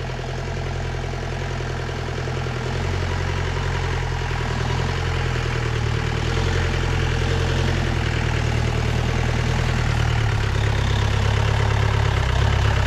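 Off-road jeep's engine running under load as it climbs a steep, rough track, growing steadily louder as it comes closer.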